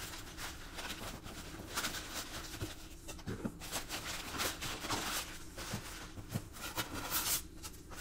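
Crumpled brown kraft packing paper rustling and crinkling as it is pulled out of a cardboard box, with a few light knocks from the box.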